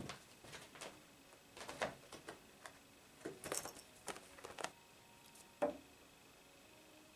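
Tabby cat playing with a catnip toy on a rug: scattered light taps, scuffs and rustles from its paws and body, with one sharper knock about five and a half seconds in.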